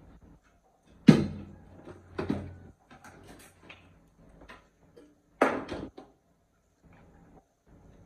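Kitchen clatter: sharp knocks and clunks of things being handled, with lighter clicks between. The loudest knock comes about a second in, and two more follow, one about a second later and one past the middle.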